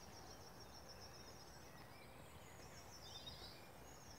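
Near silence with faint, high-pitched birdsong, with a short falling phrase about three seconds in.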